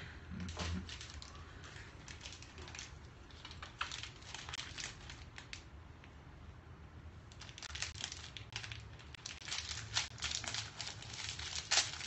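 Crinkly wrapper of an ice-cream bar crackling as it is handled, in several irregular bursts that grow busier toward the end.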